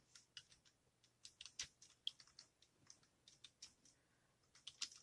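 Faint keystrokes on a computer keyboard, tapped in short irregular clusters as a few words are typed.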